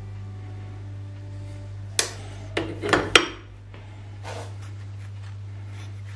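Metal parts clattering and knocking as an aluminium mounting plate is handled and set down on a milling machine's steel table. There are several sharp knocks about two to three seconds in and a softer one shortly after, over a steady low hum.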